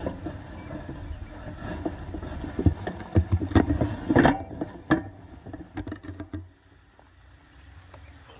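Irregular knocks, clicks and rustling close to the microphone over a low rumble, as of the recording device being handled; it dies down about six and a half seconds in, leaving a faint background.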